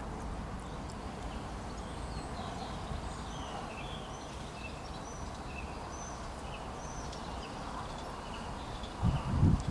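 Breeze rustling through spring trees as a steady rush, with small birds chirping briefly many times. Near the end, a gust buffets the microphone with loud low rumbles.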